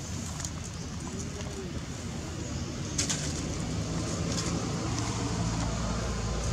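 A bird cooing low over a steady outdoor background, with a sharp click about three seconds in.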